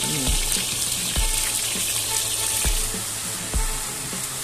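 Sliced onions sizzling in hot oil in a large cauldron, as a steady hiss. A dull knock comes about once a second as a long-handled spatula stirs them against the pot.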